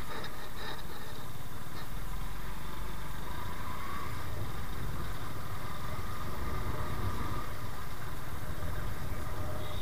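Motorcycle engine running steadily as the bike is ridden along a street, a constant low drone.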